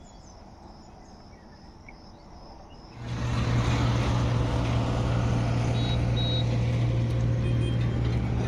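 Faint insect chirring, then about three seconds in a loud steady vehicle hum with rushing wind noise starts abruptly and keeps on, with a few short high beeps.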